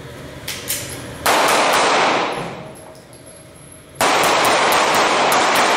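Two strings of rapid 9mm pistol fire from an FN FNS-9C, one about a second in and one about four seconds in. The shots run together and ring on in the echo of an indoor range.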